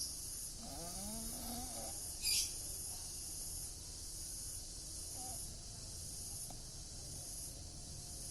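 A man snoring in his sleep, with a short, loud hissing burst a little over two seconds in.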